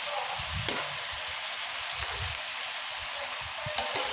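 Beef and diced vegetables sizzling in a nonstick frying pan, a steady hiss, while a metal spoon stirs them with an occasional light scrape against the pan.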